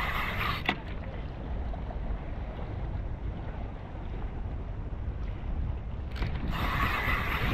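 Wind buffeting the microphone, a steady low rumble. A brighter hiss of sea water washing against rocks joins in the first second and again from about six and a half seconds in.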